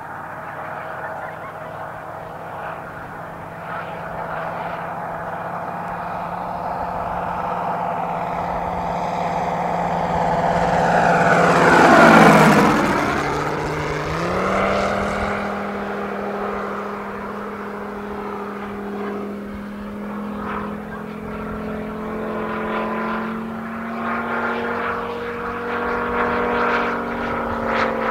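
Large RC Sea Fury's geared 250 cc Moki radial engine and five-blade propeller droning in flight, growing louder as the plane approaches, passing low about 12 seconds in with a falling pitch sweep. After the pass the engine note steps up higher and holds steady as the plane climbs away.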